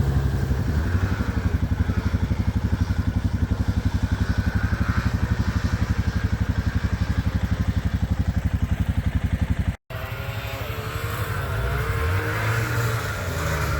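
Snowmobile engines: a close engine runs with a steady fast pulsing. After a brief cut near the end, sleds are heard revving with their pitch rising and falling as they run the course.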